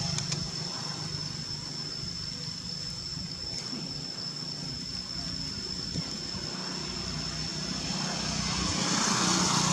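Steady outdoor background: a low engine-like hum with a constant thin high-pitched whine over it, and the noise swelling near the end as if a vehicle draws closer.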